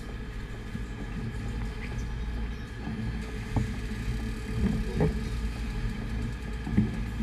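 Sportfishing boat's engines running with a steady low rumble, mixed with water washing around the stern, and a few sharp knocks in the second half.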